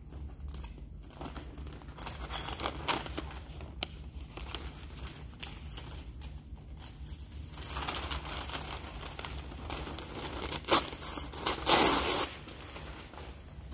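Sheets of newspaper rustling and crinkling as they are handled and folded, with a louder flurry of crackling near the end as a sheet is shaken open.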